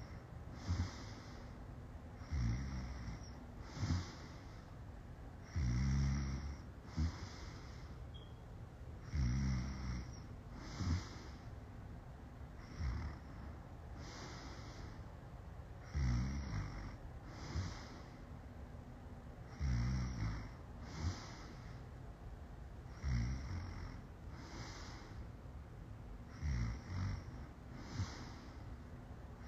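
A woman passed out drunk, snoring heavily. A loud, rattling snore comes about every three and a half seconds, each followed about a second later by a shorter, breathy puff.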